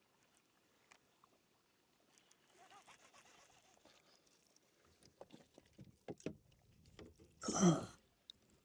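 Handling knocks on a kayak: faint rustling, then a run of small knocks and one louder thud near the end.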